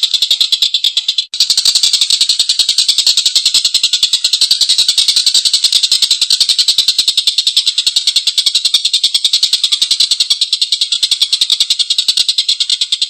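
Tengkek buto bird giving a long, continuous chattering call: a fast, even run of harsh, rasping notes with a brief break about a second in.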